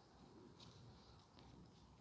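Near silence: faint room tone with a few soft, light clicks.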